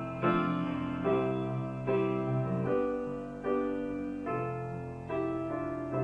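Background piano music: a slow, gentle piece with a new chord struck about every 0.8 seconds, each one fading before the next.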